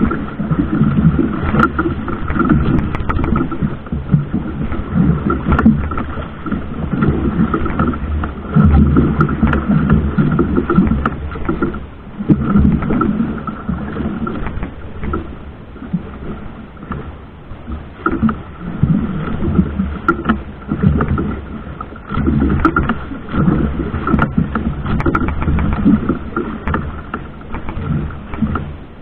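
Boat engine running steadily, a constant low hum with a thin steady whine above it, under uneven surging rushes of noise.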